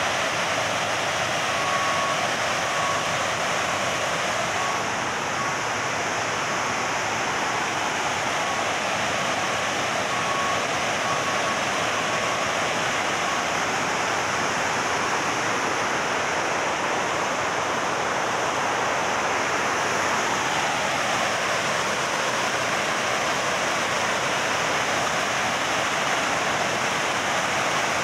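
Water pouring over a low concrete dam spillway and tumbling down a rocky cascade: a steady, even rush.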